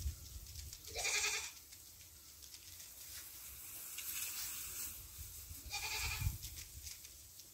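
A goat bleating twice, once about a second in and again about six seconds in, each call short.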